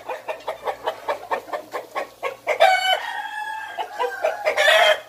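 Gamecocks (Vietnamese gà nòi roosters) in wire-fronted pens, clucking in quick short calls throughout. About halfway through, one rooster gives a single long crow that ends just before the close.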